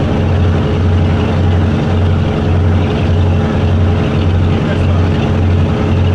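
Boat engine running steadily: a low drone with an even throb about twice a second.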